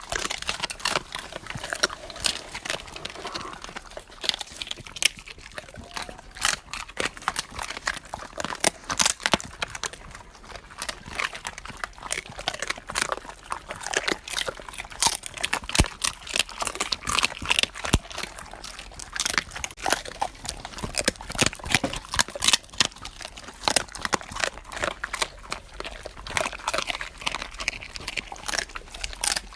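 Dogs chewing and crunching on beef thigh bones up close: irregular sharp cracks and crunches, several a second, with wet gnawing between them.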